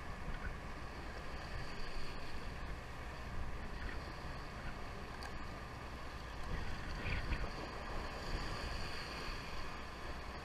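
Steady wind noise on the microphone and sea water washing along a fishing boat's hull, over a low rumble.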